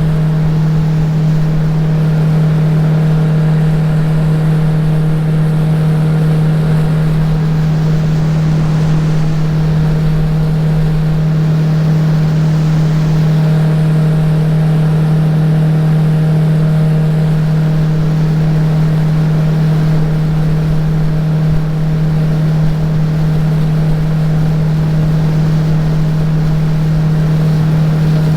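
Jet-drive outboard motor on a tunnel-hull boat running under way at a steady speed, holding one constant pitch throughout.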